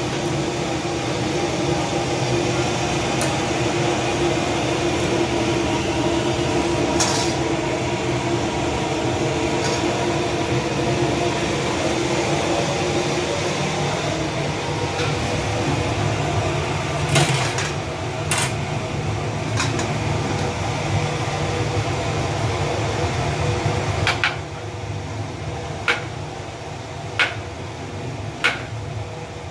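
A steady mechanical hum with a few fixed tones in it, broken by occasional sharp clinks. Near the end the hum drops away and about five sharp clinks follow, a second or so apart.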